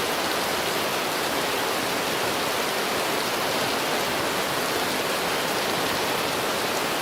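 Steady heavy rain falling, an even hiss with no let-up.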